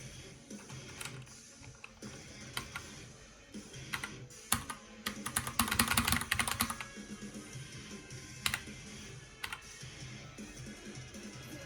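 Keys of a Keychron K2 mechanical keyboard clicking under the fingers: scattered single key presses, with a quick run of rapid keystrokes about five seconds in. Background music plays underneath.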